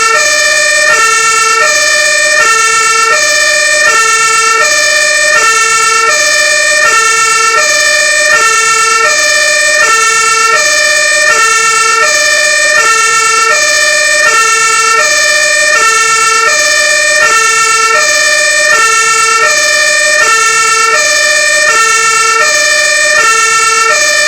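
Fire brigade Martin-horn, a two-tone siren, sounding continuously. It alternates evenly between a low and a high note, about one low-high pair every one and a half seconds, at constant loudness, with a steady higher tone held underneath.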